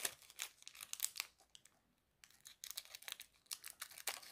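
Clear plastic film wrapped around a nail file crinkling and tearing as it is picked open with a pointed tool: faint, irregular crackles and small snaps, with a short pause about halfway.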